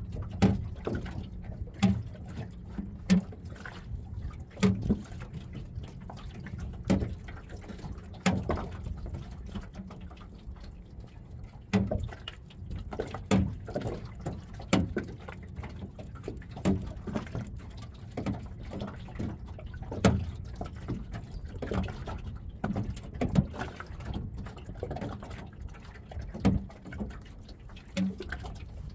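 Small waves lapping and slapping against the hull of a small open boat: irregular knocks every second or two over a low steady rumble.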